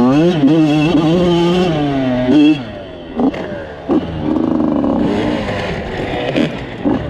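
Two-stroke off-road engine revving under throttle, its pitch wavering up and down; it eases off about two and a half seconds in and picks up again a little over a second later.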